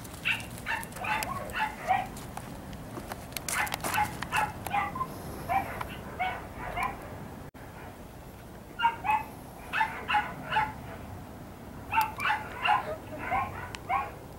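A dog barking in quick runs of short, high-pitched barks and yips, several a second, in bursts separated by short pauses.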